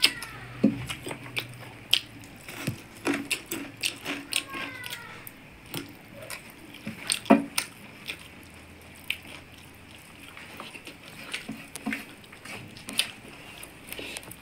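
Eating sounds from two people eating chicken curry and rice with their hands: wet chewing and lip smacks with many short clicks, and fingers mixing rice on steel plates.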